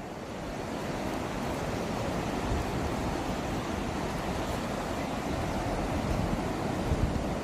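Ocean surf breaking on a sandy beach: a steady wash of heavy waves, with wind rumbling on the microphone.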